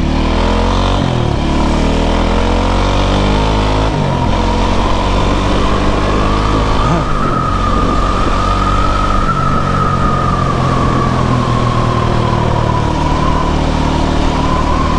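Loncin LX300 enduro motorcycle's 292 cc single-cylinder engine running under way, its note rising and falling several times with throttle and gear changes.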